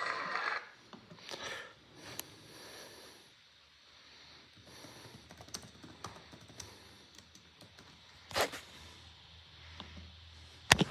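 Faint scattered clicks and taps, with a louder click about eight seconds in and a sharp one near the end.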